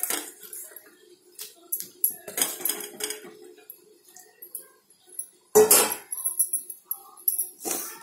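Kitchen clatter as crab pieces go into a simmering masala in an iron kadai: several sharp clinks and knocks of shell and utensil against the metal pan and a steel bowl. The loudest comes a little past the middle.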